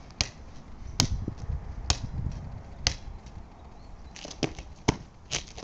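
A rubber playground ball bouncing on a concrete driveway: a sharp slap about once a second, four times, then a quicker run of knocks near the end.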